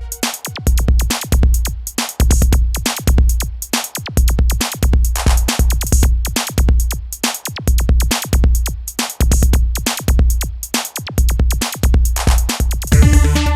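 Electronic drum beat from a Novation Circuit groovebox demo: a steady, deep kick drum pattern under fast hi-hat ticks, with synth chords coming in near the end.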